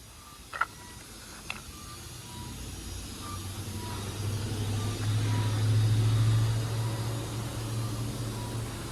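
Low, steady hum from the mechanism of a broken karakuri automaton clock. It grows louder over the first few seconds and then holds. The uploader hears it as an abnormal noise that sounds constantly, even outside performance times, a sign of a fault in the mechanism. Two short clicks come in the first two seconds.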